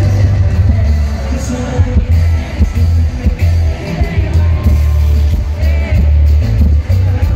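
Live Latin pop concert music over a loud PA, with a heavy pulsing bass and the band singing into microphones, heard from the crowd.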